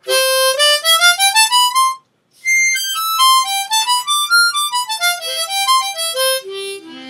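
Sonny Boy Special diatonic harmonica played in single notes: a run stepping up the scale for about two seconds, a short break, then a longer phrase that starts high, moves down and up, and ends on low notes. A brand-new harmonica test-played out of the box, with no real problems.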